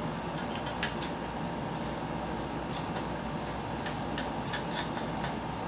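Light plastic clicks and ticks from an electric fan's parts being handled and fitted, as the back cover is seated and its lock is turned, over a steady background hiss.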